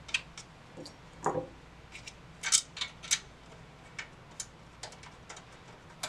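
Thumb screws being threaded by hand into a graphics card's mounting bracket in a PC case: light, irregular clicks and ticks, the loudest about two and a half and three seconds in.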